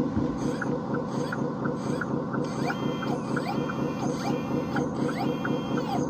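Hydraulic pump of an RC Volvo A40G articulated dump truck running steadily with a fast, even pulse and a light tick about three times a second; a higher whine joins about two and a half seconds in and again near the end.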